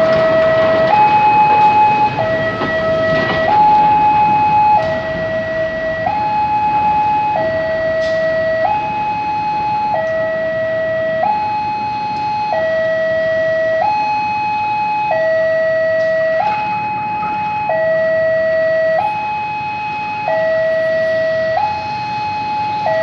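Railway level crossing warning alarm sounding a steady two-tone signal, switching between a higher and a lower tone about every second and a quarter. Covered freight wagons rumble past close by in the first few seconds.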